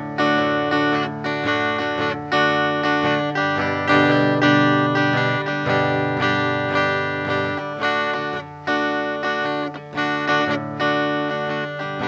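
Chinese-made replica Gibson J160E acoustic-electric guitar with flatwound strings, strummed chords played through a Vox Tonelab ST on a clean setting. The treble is turned down a little for a less jangly, rhythmy "cardboard" sound.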